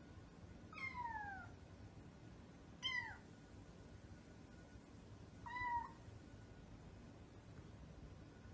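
Kitten meowing three times, high-pitched: the first two calls fall in pitch, and the third is held level.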